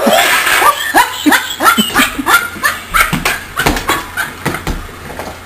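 A person laughing hard: a long run of short pitched 'ha' sounds, about three a second, growing fainter near the end.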